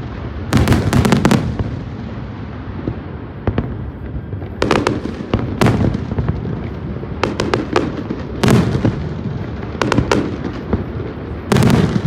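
Fireworks going off: a steady low rumble of bursts, broken every second or two by louder sharp bangs. Some of the bangs come in quick crackling clusters.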